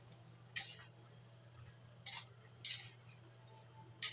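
Metal ladle stirring a chicken and vegetable stew in an aluminium wok, scraping and clinking against the pan four times in short strokes. A low steady hum runs underneath.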